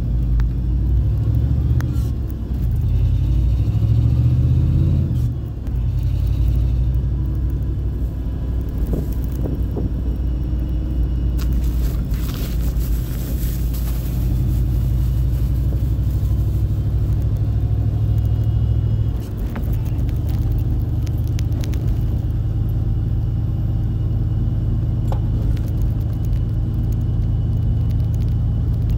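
In-cab sound of a 1995 Chevrolet Cheyenne pickup under way, its ZZ4 5.7-litre V8 running steadily and dropping off briefly twice, about five seconds in and again near two-thirds of the way through, as the five-speed manual is shifted. A faint high whine from the power steering pump rides over the engine.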